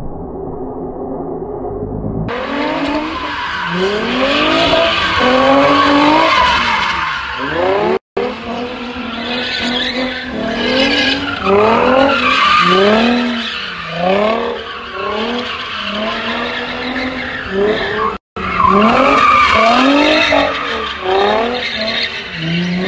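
A car drifting. Its engine revs climb again and again in quick sweeps while the tyres squeal and skid through the slide.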